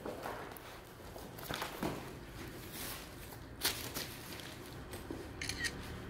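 Scattered light rustles and clicks from handling, with a sharper tick about three and a half seconds in.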